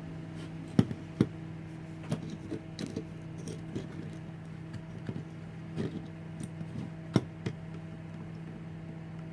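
Light clicks and taps of hand work on 18650 cells at a soldering bench, scattered irregularly with the sharpest about a second in and again about seven seconds in, over a steady low hum.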